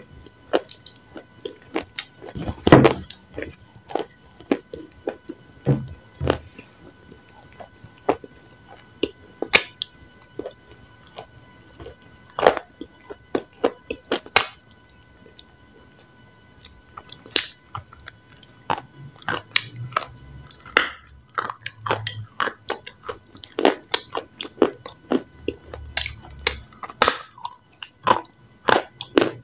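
Close-miked crunching and chewing of a dry, chalky white lump: crisp bites come at irregular intervals, with a quieter stretch a little past the middle.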